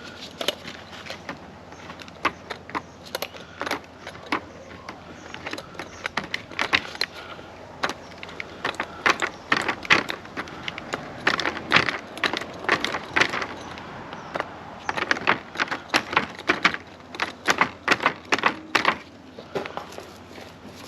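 A long run of irregular sharp taps and clicks, coming singly and in quick clusters.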